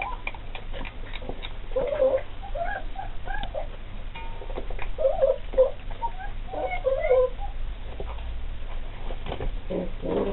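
Anglo Wulfdog puppies making short whining, squeaky calls in several short runs while feeding on raw chicken carcasses, with small clicks of chewing.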